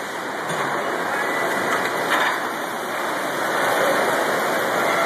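Steady, even hiss of factory machinery noise in a vehicle-frame welding shop.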